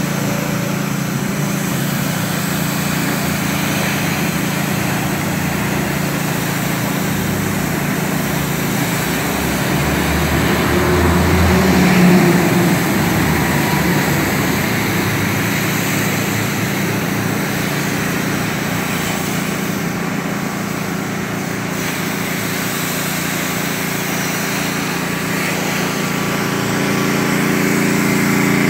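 Gas-engine pressure washer running steadily, with the hiss of its high-pressure water jet blasting concrete pavement. The sound swells briefly about a third of the way through.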